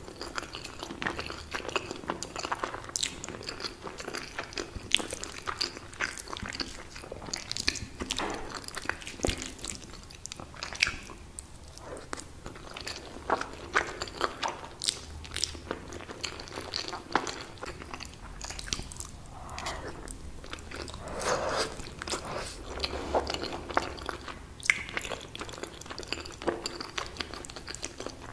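Close-miked eating of lasagna: big bites and chewing, with many short sharp mouth clicks and smacks and a few longer wet, squelchy stretches.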